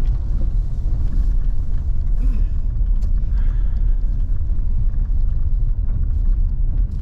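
A car moving and being pulled over, heard from inside the cabin as a steady low rumble of engine and road noise.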